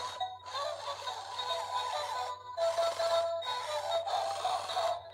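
Jiggly Pets puppy toy playing its electronic tune, a simple beeping melody of held notes with a few short breaks.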